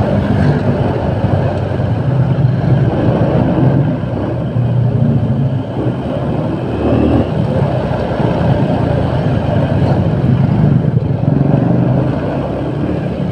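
Motorcycle running along a busy street, its engine and road noise a steady, loud rumble mixed with surrounding traffic.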